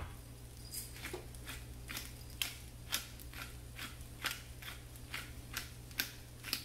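Stainless steel pepper mill being twisted by hand, grinding black pepper: an even run of short sharp clicks, about two a second.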